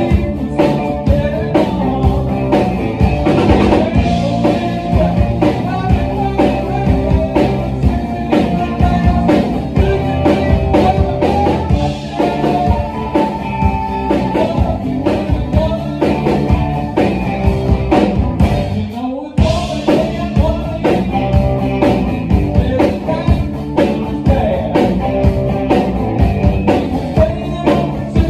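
A rock band playing live: electric guitars, bass and drum kit keeping a steady beat, with a short break about two-thirds of the way through before the full band comes back in.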